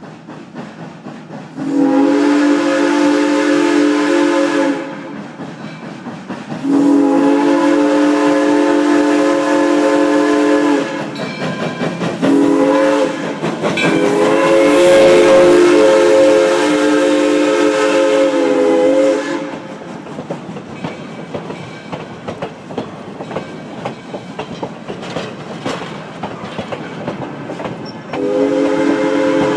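Steam locomotive chime whistle on a 2-8-0 Consolidation blowing long, long, short, long, the grade-crossing signal, as the engine passes close by. Then the rattle and clatter of the passing coaches' wheels over the rail joints, with another whistle blast starting near the end.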